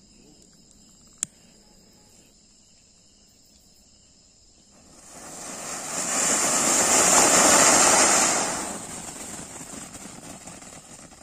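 Anar (flower-pot fountain firework) spraying sparks: a rushing hiss that starts about five seconds in, swells to a peak for a couple of seconds, then dies down. A single sharp click comes about a second in.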